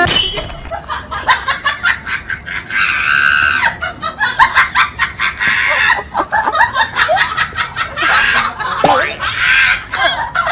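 People laughing and snickering over a run of sharp clicks and clatter from a battery-operated crawling soldier toy.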